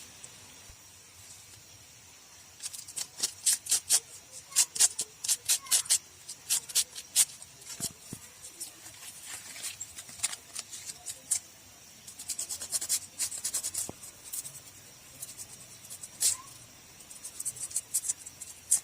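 A spark plug being scraped clean of carbon deposits: short, scratchy strokes in quick irregular runs, starting a few seconds in and pausing now and then. The plugs are carbon-fouled, which is taken for the likely cause of the engine's misfire.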